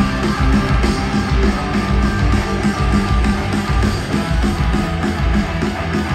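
Loud live rock music: guitars over a steady pounding drum beat.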